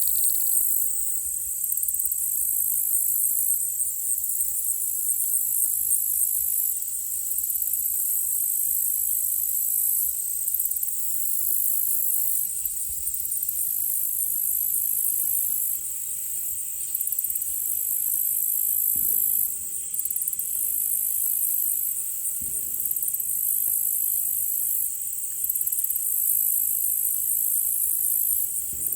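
Insects trilling in a loud, continuous high-pitched chorus that swells and eases every second or two. Two faint low thuds come late, a few seconds apart.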